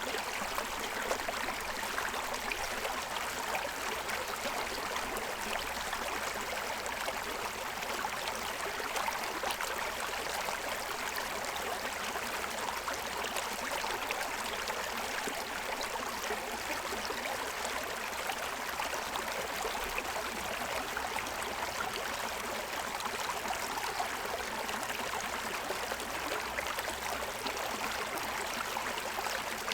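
Shallow stream running over a stony bed: a steady rush of water with a constant burble and gurgle.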